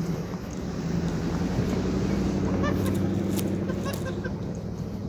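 A motor vehicle's engine running, a steady low hum that grows louder about a second in and eases off near the end. A few short high chirps come around the middle.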